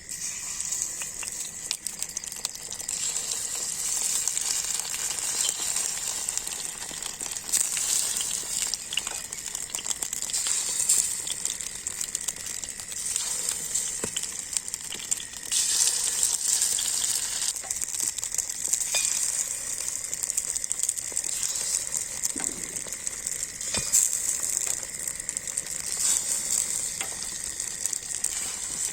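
Egg, onion and green chilli batter sizzling steadily in hot oil in a paniyaram pan, with a few light clicks.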